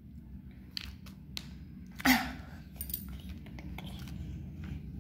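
Light handling noises of hands and craft paper on a hard floor: scattered soft clicks, taps and rustles over a steady low hum, with one louder short knock about two seconds in.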